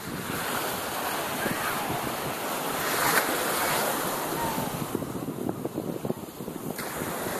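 Small waves washing and lapping at the shoreline in shallow water, with wind buffeting the microphone. The wash swells about three seconds in, then eases.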